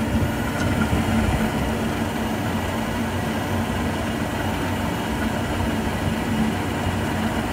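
Pentair MasterTemp 250 gas pool heater starting up, its blower and the pool pump running with a steady hum. The gas valve has not yet opened.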